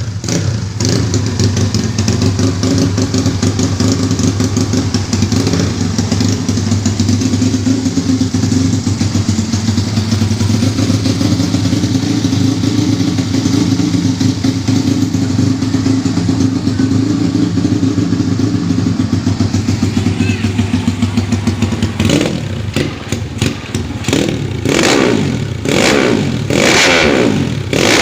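Motorcycle with a Yamaha Jupiter four-stroke single-cylinder engine idling steadily, then revved in several quick blips near the end, its pitch rising and falling with each.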